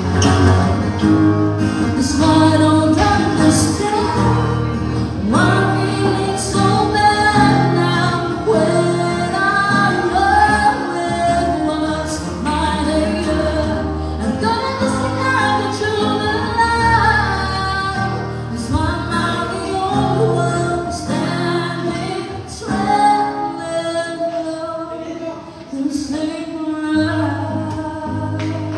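A woman singing a melody into a microphone, accompanied by a strummed acoustic guitar, live.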